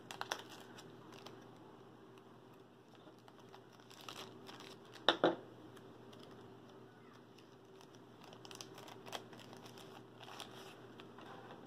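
Small clear plastic zip-top baggies crinkling and rustling as they are handled, with scattered light clicks. Two sharp clicks about five seconds in are the loudest sounds.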